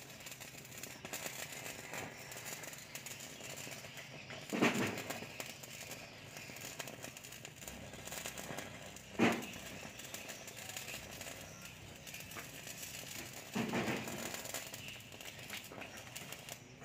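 Electric arc of a stick electrode from an inverter welding machine crackling and sizzling as it melts through steel rebar to cut it. It runs continuously, with three brief louder surges spaced about four to five seconds apart.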